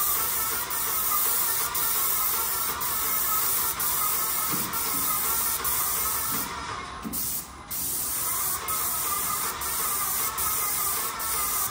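Small electric paint sprayer spraying paint onto a wall: a steady hiss that breaks off briefly about seven seconds in.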